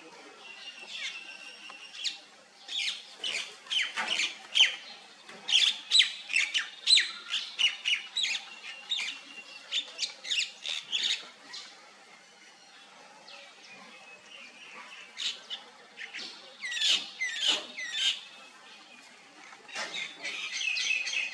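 High-pitched animal calls: many short, sharp chirps and squawks in quick runs, with a pause of a few seconds between runs. Near the end comes a longer, held squealing call.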